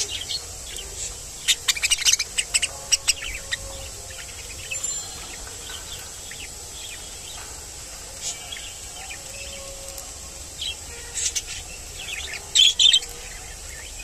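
Budgerigars chirping: quick flurries of short, high chirps about a second and a half in and again near the end, with scattered single chirps between, over a faint steady high whine.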